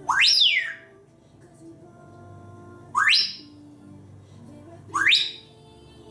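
African grey parrot whistling: three quick rising whistles that sweep sharply upward in pitch, the first falling back down after its peak, the next two about three and two seconds later.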